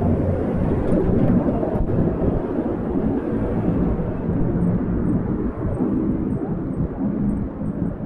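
Yamaha MT-07 (FZ-07) parallel-twin engine running on the move at a fairly even loudness, recorded without wind noise.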